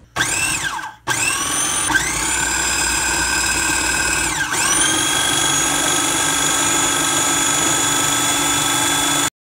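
Electric food processor motor blending a thick bread-and-milk mixture, with a high whine. It spins up with a rising whine, stops and restarts about a second in, and slows briefly under the load and picks up again twice. It then runs steadily and cuts off suddenly near the end.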